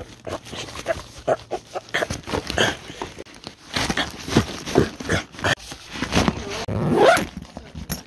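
A backpack full of drone gear being handled, with rustling and many short clicks and knocks, over repeated short whining animal cries, one rising near the end.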